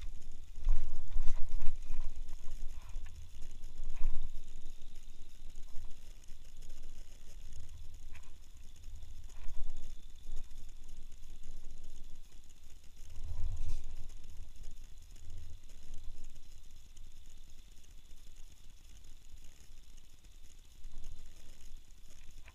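Spinning fishing reel being cranked and the rod handled, with a ratcheting, geary clicking and irregular low thumps of handling on the microphone, loudest about a second in and again around the middle.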